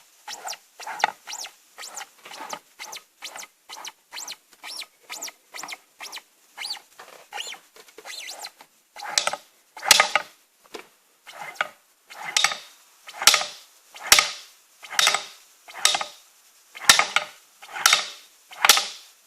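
Repeated short squeaks from a Gilera Runner 50SP scooter, the strange noise it is making, with no engine running. They come quickly at first, then slower and louder from about halfway.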